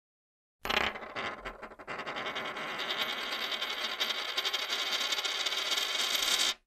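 Logo-animation sound effect: a sudden hit a little over half a second in, then a bright, hissing sound that grows stronger and cuts off abruptly near the end.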